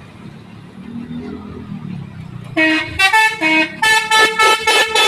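Bus 'telolet' horn: a multi-tone air horn playing a quick tune of short notes at changing pitches, starting about halfway in. A low engine rumble is heard before it.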